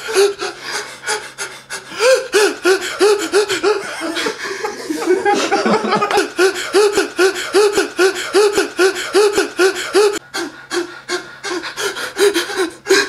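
Exaggerated heavy breathing: a fast, rhythmic train of loud voiced gasps, about three a second, with a short break a little after the middle.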